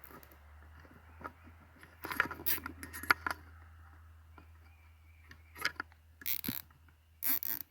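Nylon zip tie being wrapped around a plastic wire-loom sleeve on a power cable: handling rustles and small clicks, then two short ratcheting rasps near the end as the tie's tail is pulled through its lock.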